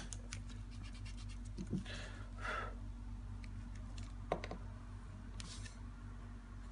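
Pen scratching on paper in a few short strokes while a plastic protractor is moved about on the sheet, with scattered light clicks, over a low steady hum.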